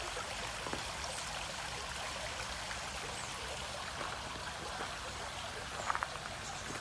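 Garden hose mister spraying water with a steady hiss, with a few short clicks near the end.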